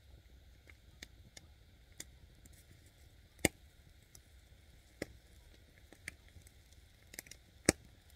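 Small wood campfire crackling, with scattered sharp pops from the burning sticks; two pops, about three and a half and seven and a half seconds in, are much louder than the rest.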